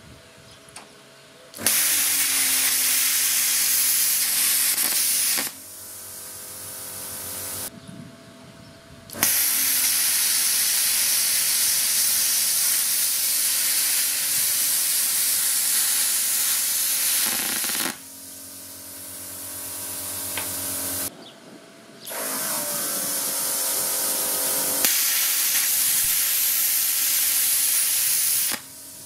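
Parkside Performance PPSK 40 A2 plasma cutter cutting steel plate: a loud, even hiss of the plasma arc and air jet, three cuts of several seconds each. Between the cuts the machine's built-in air compressor and cooling fan keep running with a quieter hum.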